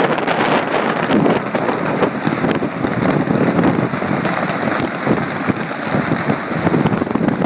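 Dense, continuous crackle of many distant fireworks and firecrackers going off at once across a city: countless overlapping pops, with no single bang standing out.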